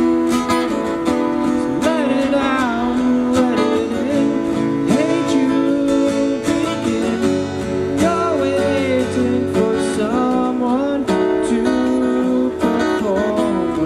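Two acoustic guitars strummed together, with a man singing a sliding, held melody over them.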